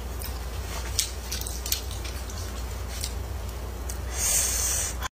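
Soft wet mouth clicks and lip smacks as a person licks her lips after eating, over a steady low hum, with a short hiss about four seconds in.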